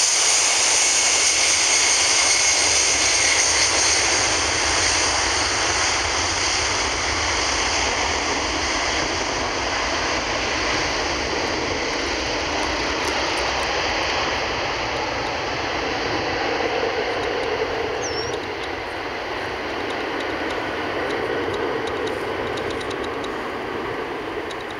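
McDonnell Douglas MD-11 trijet's jet engines at takeoff power on the runway roll: a loud steady rushing noise with a strong high hiss that slowly fades as the aircraft moves away.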